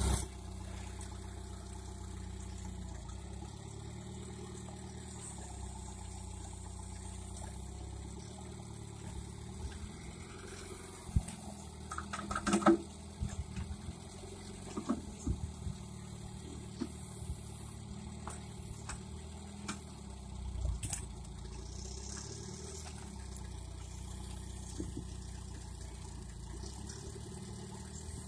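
Engine of a homemade tractor running steadily at a low, even pitch, with scattered knocks and clanks over it, the loudest cluster about twelve seconds in.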